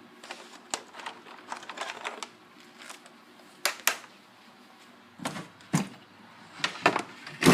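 Handling noise: irregular light clicks and taps, with a few sharper knocks in the second half, as hands work with the vacuum cleaner and the things around it.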